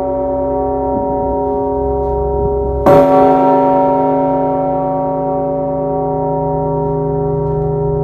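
Large stationary Russian bell struck once by its rope-pulled clapper about three seconds in: a sharp clang, then a long ring of many steady tones. The ring of the previous stroke is still sounding before the strike.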